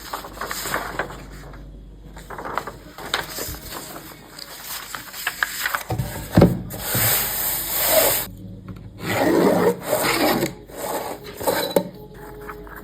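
Calligraphy pen nib scratching across paper in a run of irregular strokes, with longer, louder strokes in the second half.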